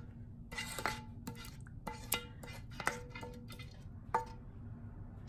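A silicone ladle scraping and knocking against a metal frying pan as meat sauce is pushed out onto lasagna noodles in a glass baking dish: a string of light, irregular knocks, several with a brief metallic ring, and a soft wet slide of sauce between them.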